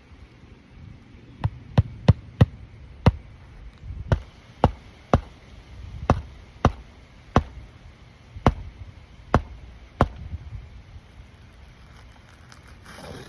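Nails being driven into a replacement asphalt roof shingle: about fourteen sharp strikes, some in quick runs and some a second apart, stopping a few seconds before a brief rustle near the end.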